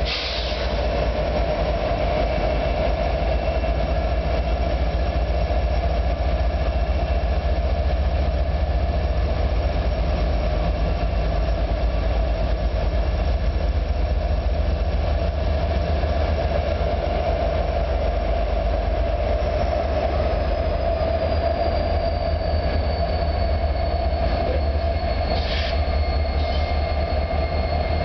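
Union Pacific freight train of empty double-stack well cars rolling slowly by, with the steady low rumble of its diesel locomotives. About two-thirds of the way through, a thin high steel wheel squeal comes in and slides slightly down in pitch.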